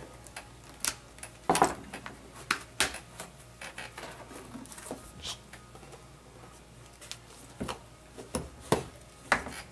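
A utility knife cutting through a thin plastic sheet, then the sheet and its cut-off pieces being handled and flexed on a wooden workbench: scattered sharp clicks, snaps and knocks, the loudest about a second and a half in.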